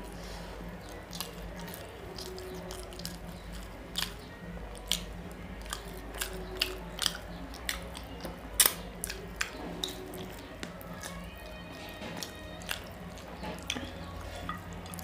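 Close-up wet chewing and lip-smacking of a person eating rice and fish curry by hand, with irregular sharp mouth clicks, over a steady low hum.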